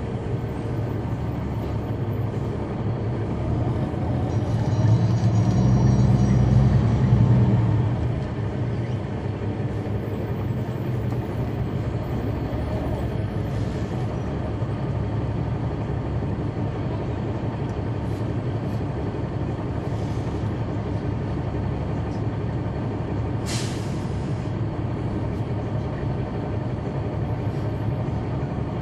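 Cabin sound at the rear of a 2004 Neoplan AN459 articulated bus, its Caterpillar C9 diesel engine running with a steady drone. The engine grows louder for about four seconds early on, then settles back. A short hiss of air comes near the end.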